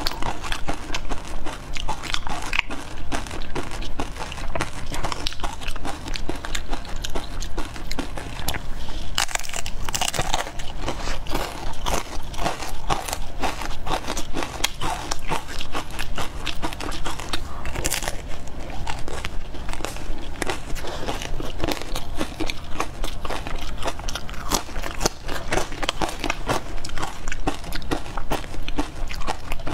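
Close-miked biting and chewing of a crisp wafer ice-cream cone: dense, irregular crunching and crackling throughout.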